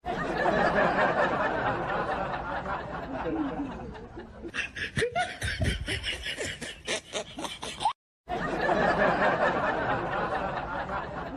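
People laughing and snickering, with a run of rapid pulsed bursts in the middle, broken off briefly about eight seconds in.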